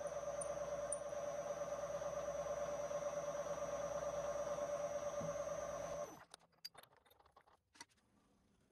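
TIG welding arc on stainless steel, a steady buzzing whine that cuts off abruptly about six seconds in as the arc is stopped, followed by a few faint clicks.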